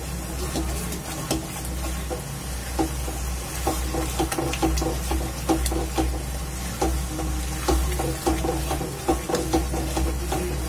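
Silicone spatula stirring and scraping thick grated-pumpkin and khoya mixture in a non-stick kadhai, with a light sizzle as it cooks down to drive off the last of its water. The spatula makes soft, irregular taps against the pan, coming more often in the second half, over a steady low hum.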